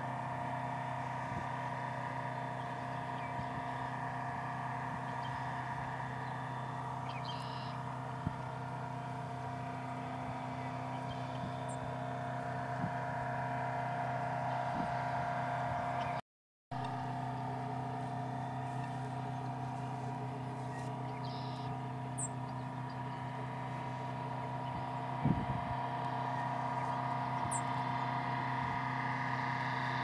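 A motor engine running at a steady idle, a constant hum with several fixed pitches. A few short, faint high chirps from birds break in now and then, and the sound drops out for a moment about halfway.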